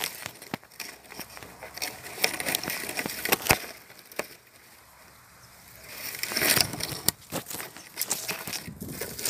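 Rustling and crackling handling noise with many scattered sharp clicks and knocks, including a louder stretch of rustling about six seconds in.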